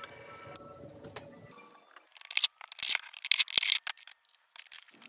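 Rattling and clicking of an office chair's black plastic back bracket and knob being worked by hand, in quick clusters through the second half.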